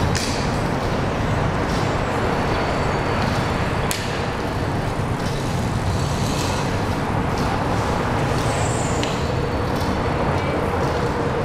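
Steady roar of highway traffic passing over the bridge deck overhead, with a few faint clicks and a short high squeak about two-thirds of the way through.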